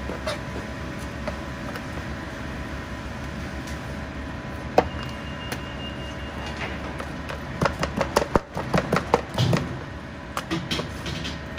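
Chinese cleaver knocking and scraping on a plastic cutting board as raw chicken thigh meat is sliced and handled. There is a single sharp knock about five seconds in and a cluster of quick knocks a few seconds later, over a steady background hum.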